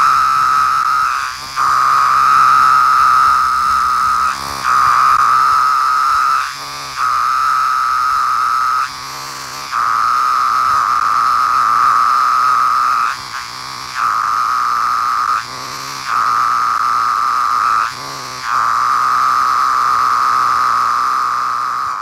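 17-year periodical cicadas (Magicicada, Brood XIII) calling loudly: a steady, high buzz in phrases a couple of seconds long, each broken by a short dip before the next begins.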